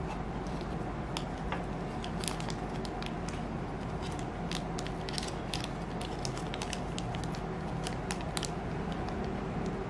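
Small clear plastic bag crinkling and crackling in the fingers in a scatter of sharp little clicks, over a steady low background hum.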